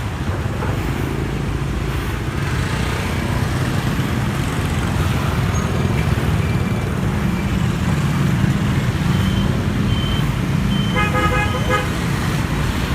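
Street traffic: motorbike and car engines running in a steady rumble, with a horn honking in a quick run of short beeps near the end.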